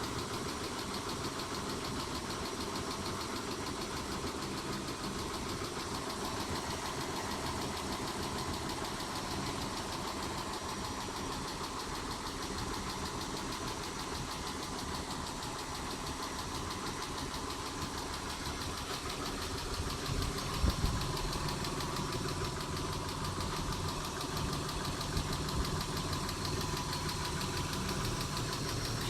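Mitsubishi 6G72 3.0 V6 idling with a rapid, even ticking from the valvetrain, which the owner takes for worn hydraulic lifters. About two-thirds of the way in, the low engine hum grows louder, with a couple of brief bumps.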